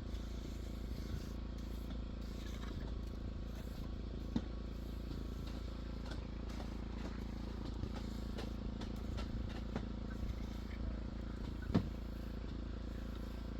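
Steady low mechanical hum, like an engine or motor running, with two sharp knocks: one about four seconds in and a louder one near the end.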